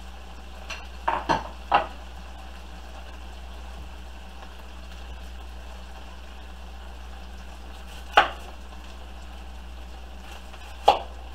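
Pieces of beef sizzling steadily in a frying pan, with a few sharp knocks on a wooden cutting board as a knife and an onion are handled: three close together about a second in, then single ones past the middle and near the end.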